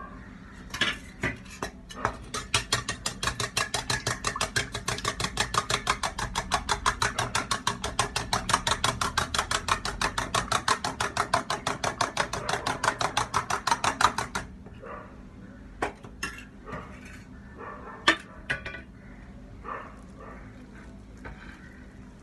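Eggs beaten by hand in a stainless steel bowl, the utensil clicking against the metal in a fast, even rhythm of about five strokes a second for some twelve seconds. After that, a few scattered clinks and taps.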